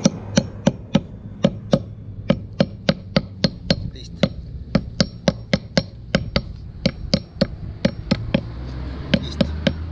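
Quick, light hammer taps, about three a second, on a folded lead sinker resting on a wooden block, crimping it shut around the lead rope of a fishing net. The taps pause briefly near the middle and again a little later.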